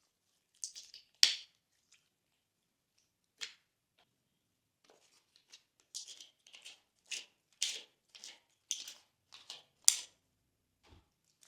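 Glossy slime being pressed and stretched by hand: short sticky squelches and crackly pops, the sharpest about a second in and near the end, coming about twice a second in the second half.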